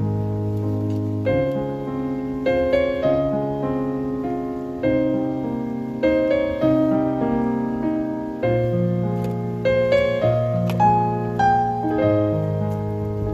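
Solo piano background music: a melody of single struck notes, each dying away, over held lower notes.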